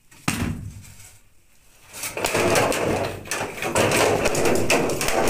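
Bamboo ceiling poles being wrenched apart: a sharp knock shortly after the start, then from about two seconds in a loud stretch of dense clattering and cracking of bamboo.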